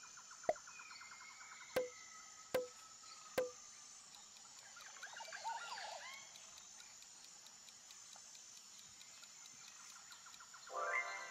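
Faint nature-style background of a steady insect-like hiss, a rapid trill and a cluster of bird-like chirps about five seconds in. Four sharp clicks fall in the first few seconds, and a short pitched sound with several tones comes near the end.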